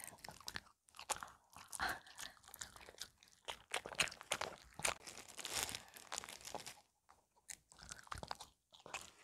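A Maltese dog chewing and crunching bites of a kimchi cabbage and meat wrap taken from the hand, with quick irregular crunches and clicks of its bites.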